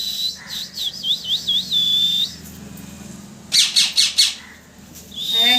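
Parrot whistling and chirping: a held high whistle, then a warbling run of whistled notes, a pause, a quick series of sharp chirps about three and a half seconds in, and another held whistle near the end.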